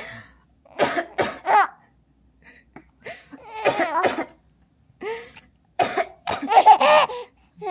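A woman coughing deliberately in short bursts, three quick coughs about a second in and another run of them later, to make a three-month-old baby laugh. Between the coughs the baby answers with high laughing squeals.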